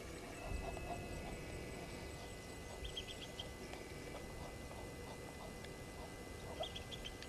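Bush ambience at a waterhole: birds calling in short quick runs of high notes, twice, over a steady high-pitched tone and scattered short mid-pitched calls.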